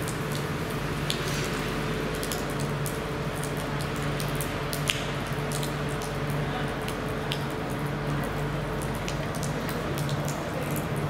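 Water drops falling onto a wet asphalt platform, splashing into puddles as many irregular ticks over a steady hiss, with a low hum underneath.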